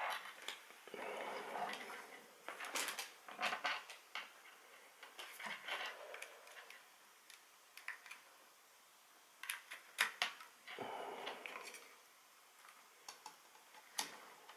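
Irregular soft clicks and short bursts of rustling, with a few sharper clicks: handling noise of small objects.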